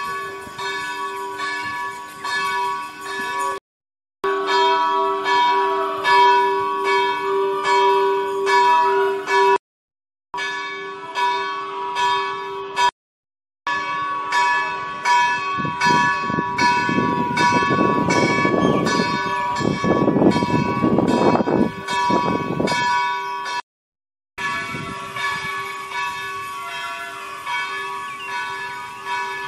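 Bells ringing on and on: a sustained ringing tone with many overtones and repeated strikes. A rushing noise swells under it for several seconds past the middle. The sound cuts out briefly three or four times.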